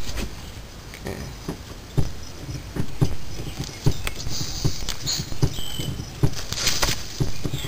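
Irregular light knocks and clicks, about one or two a second, from hands and tools working at a van's rear drum brake, with a brighter clink near the end.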